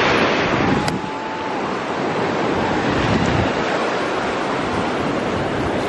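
Ocean surf breaking and washing up on a sandy beach: a steady, loud rush of waves, with wind buffeting the microphone.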